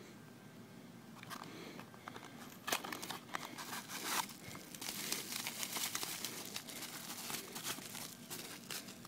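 Bubble wrap crinkling and crackling as a small folding knife is slid out of its box and unwrapped. It starts faintly about a second in and gets busier and louder from about three seconds in.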